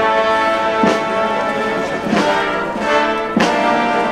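Brass band playing a slow processional march: held brass chords with a percussion stroke about every 1.3 seconds, three in all.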